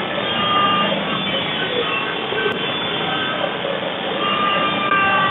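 Kubota compact tractor's diesel engine and front-mounted snowblower running steadily, heard from inside the closed cab, with short high-pitched squeals over the drone.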